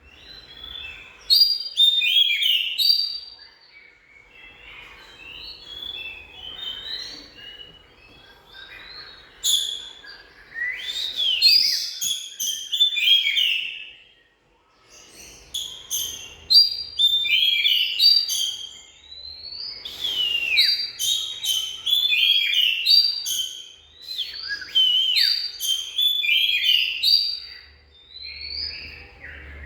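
Oriental magpie-robin singing: loud phrases of varied whistled notes that slide up and down, repeated in bursts, with a brief pause about halfway through.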